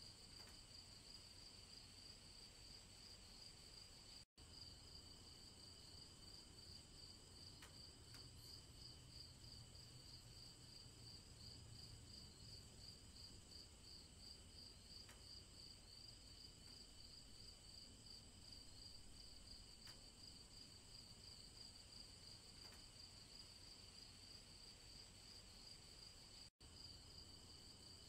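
Faint chorus of crickets chirping in a steady, even pulse. The sound cuts out for an instant twice.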